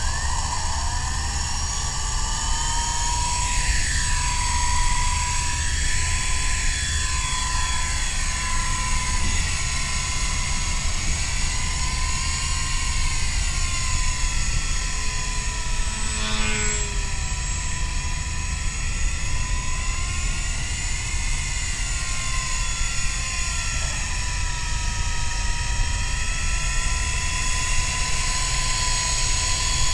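MJX F45 battery-powered RC helicopter's electric motor and rotor whining. It spools up quickly from the ground just at the start, then holds a steady high whine whose pitch wavers up and down as the throttle changes in flight.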